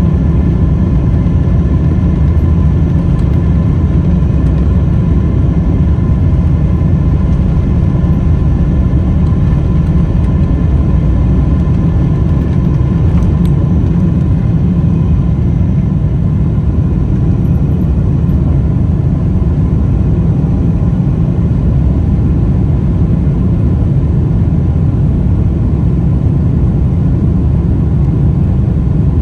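Cabin noise of a Boeing 777-300ER at takeoff power, heard from a window seat over the wing. Its GE90-115B engines run with a heavy low rumble and a faint steady whine, from the takeoff roll into the climb after liftoff.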